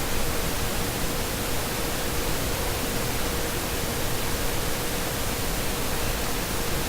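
Steady hiss, even across high and low pitches, with a faint steady tone underneath.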